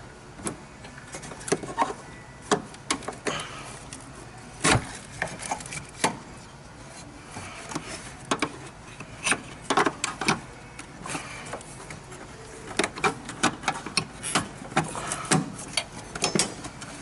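Irregular clicks, knocks and rattles of hand tools and plastic connectors while a car's engine computer is worked loose and unplugged, with one louder knock about five seconds in and a quick run of clicks near the end.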